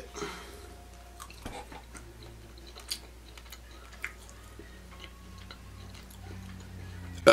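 A person quietly chewing a bite of sausage pizza, with a few small sharp mouth clicks over a faint steady low hum.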